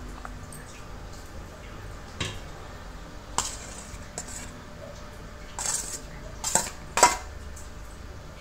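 A metal spoon clinking and scraping against a stainless steel bowl as cooked rice is served out: about half a dozen separate clinks, the loudest with a short ring near the end.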